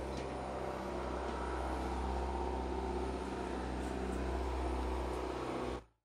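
Steady low mechanical rumble with an even hum underneath, and no bird calls; it cuts off suddenly near the end.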